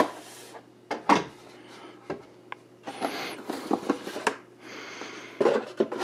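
Cardboard packaging being handled: a knock as the router is set down on the desk, a few light clicks, then the cardboard insert of the white box sliding and rustling as it is pulled out.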